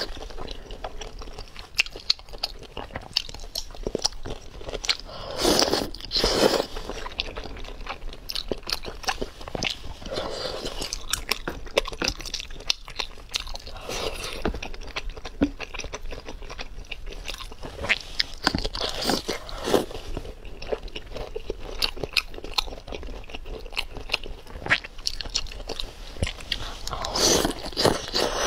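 Close-miked eating of spicy hot pot with chopsticks: steady crunchy chewing with many small wet mouth clicks, broken a few times by louder, second-long slurps.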